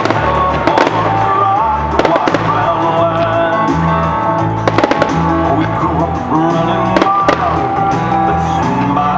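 Aerial fireworks shells bursting with scattered sharp bangs over continuous music with a steady bass line.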